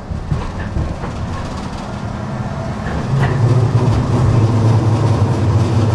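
Tram running on its rails: a steady low rumble with a few light clicks. About halfway through, a louder low drive hum sets in and holds.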